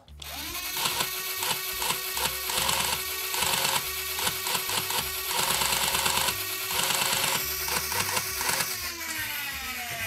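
Nerf Rapidstrike's brushed flywheel motors spin with a steady whine while the motorized pusher cycles, clicking rapidly. Near the end the motors lose power and the flywheels coast down with a falling whine.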